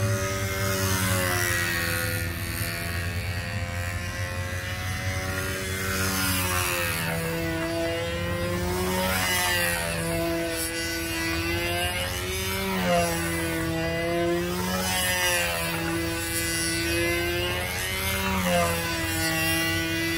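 Control-line stunt model's PA65 two-stroke glow engine running steadily at flying speed, a continuous buzzing whine. Its pitch rises and falls every two to three seconds as the plane circles the pilot on its lines.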